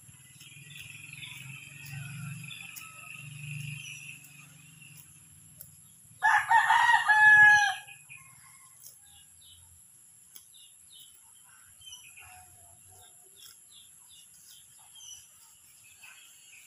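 A rooster crows once, loudly, about six seconds in, the call lasting under two seconds. A steady high-pitched whine and scattered short chirps run underneath.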